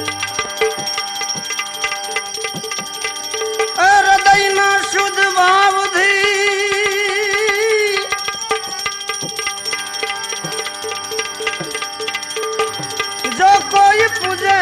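Live bhajan music, tabla strokes keeping a steady beat under a held melody with wavering pitch. The melody comes in strongly about four seconds in, thins out after about eight seconds, and swells again near the end.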